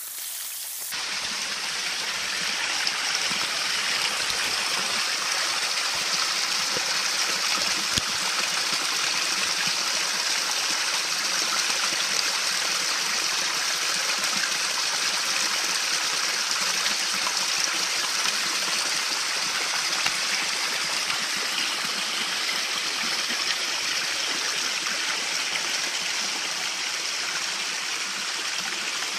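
Running water rushing steadily, like a stream or small cascade. It sets in about a second in and holds an even level.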